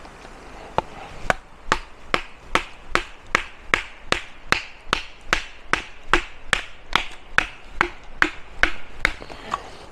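A knife blade chopping into a wooden log: a steady run of about twenty chops, a little over two a second, starting about a second in.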